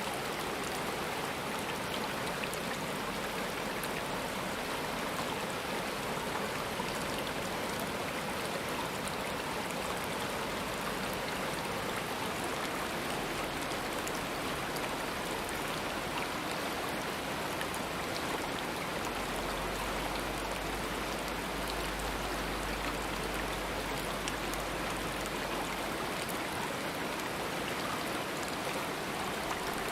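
A stream of running water flowing steadily, a constant rushing with no breaks.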